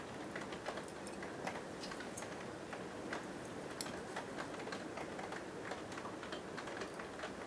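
Faint, irregular small clicks and ticks from fly-tying tools being handled at the vise: tools holding the legs come off and scissors trim at the hook. The sharpest click comes about four seconds in.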